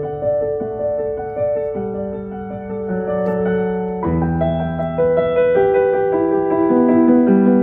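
Solo piano music played through a Pioneer VSX-522 receiver and a pair of small bookshelf speakers. Slow, sustained notes; a deeper, fuller chord comes in about four seconds in, and the music grows louder near the end as the volume is turned up.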